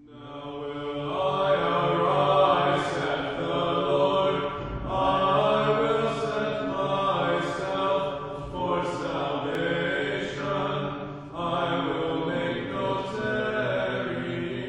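Chanted singing in long held notes over a steady low drone, fading in over the first second or so.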